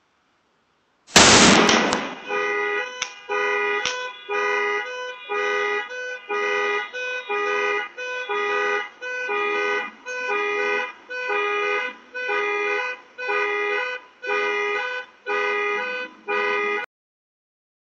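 A large firecracker explodes with one loud bang about a second in. A car alarm then sounds the horn in short honks, a little faster than once a second, for about fifteen seconds, and cuts off suddenly near the end.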